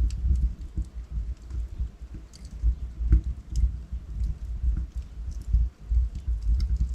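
Wood fire burning in a fireplace: logs crackling with irregular sharp pops and snaps over a steady low rumble of flames.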